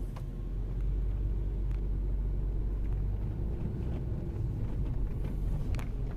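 Steady low rumble of a vehicle driving, with a few faint clicks and rattles.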